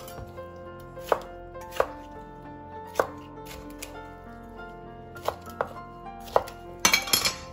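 Chef's knife chopping a red bell pepper into large pieces on a plastic cutting board: separate sharp knocks of the blade on the board about once a second, then a quick flurry of strikes near the end.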